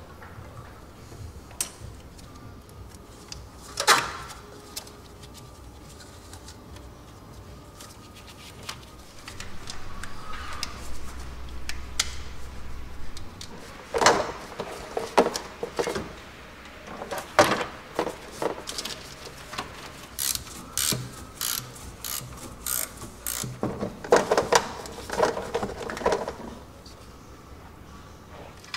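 Hand tools and metal parts knocking and clicking as components are taken off an engine bay to reach the exhaust manifolds. One sharp knock comes about four seconds in, then a long run of irregular clicks and clanks in the second half.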